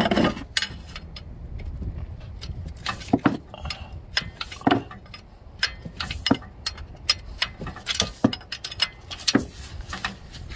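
Steel open-end wrench clicking and clinking on a tight injector fuel-line nut of a Caterpillar 3406B diesel head as the nut is worked loose: irregular sharp metal taps over a low rumble, the loudest knock right at the start.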